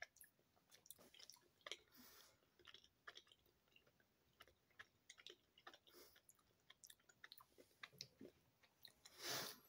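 Faint chewing of a Fruit Gushers fruit snack: scattered soft, wet mouth clicks, with a short breathy hiss near the end.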